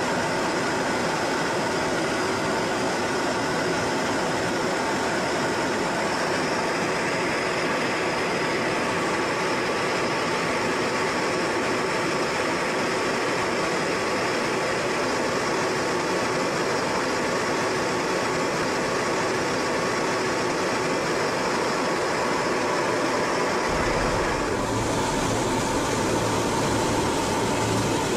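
Jet aircraft in flight, heard from inside the aircraft: a steady, loud rushing noise with several steady whining tones over it. About 24 seconds in, a low hum joins.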